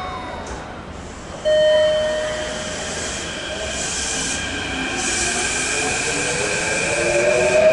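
Kintetsu 7000 series electric train pulling out of the station. About a second and a half in, a sudden loud steady tone starts. From about the middle, the traction motors' electric whine rises in pitch and grows louder as the train gathers speed.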